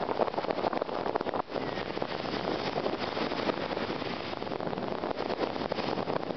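Strong wind rushing over the microphone together with the wash of a choppy sea, a steady noisy rush that drops out briefly about a second and a half in.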